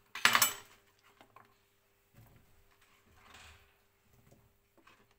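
A brief clatter just after the start, then faint scattered knocks and handling noises of kitchen work, near-silent in between.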